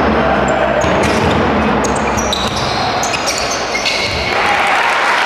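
Live basketball play in a gym: the ball bouncing on the court and sneakers squeaking in short high chirps, over the chatter of the crowd.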